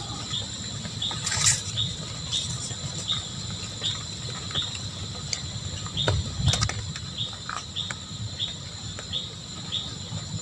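Crickets trilling steadily at a high pitch, with a short chirp repeating about twice a second over a low rumble. Two sharp clicks stand out, one about a second and a half in and one past the middle.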